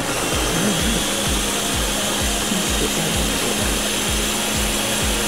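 Countertop jar blender switched on and running steadily at high speed, pureeing a thick vegetable soup, with a steady beat of background music underneath.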